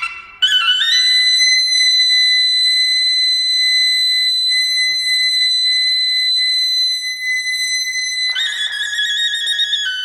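Suona solo: after a brief break the suona climbs in a quick run to one long held high note of about seven seconds, then breaks into quick trilling notes near the end.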